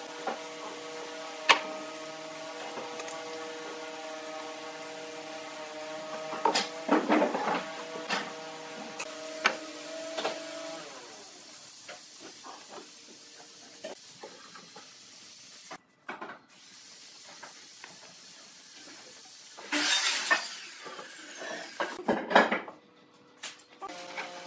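Pine boards being handled on steel pipe clamps: sharp wooden knocks as boards are set down and short rubbing scrapes as they slide against each other and the clamp bars. A steady hum runs under the first half, then stops.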